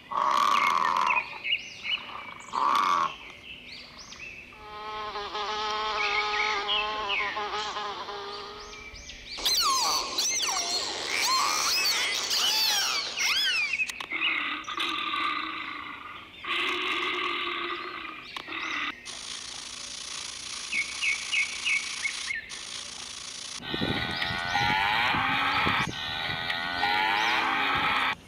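A quick succession of different animal calls and outdoor nature sounds, cut together and changing abruptly every few seconds, some with rapid chirping or gliding notes.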